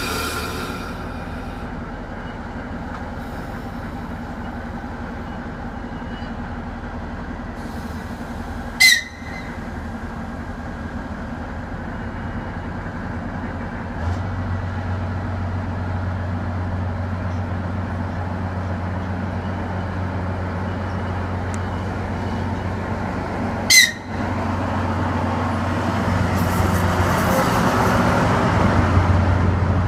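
DR1B diesel multiple unit approaching slowly, its diesel engine running with a steady low drone that grows louder about fourteen seconds in. Two short, sharp high toots of the train's whistle come about nine seconds in and again fifteen seconds later. Near the end, wheel and rail noise swells as the train rolls up alongside.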